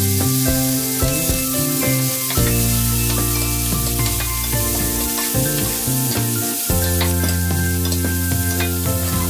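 Whelks, garlic, chillies and corn sizzling in butter in a stainless steel frying pan while a spatula stirs and scrapes them, under background music with held chords.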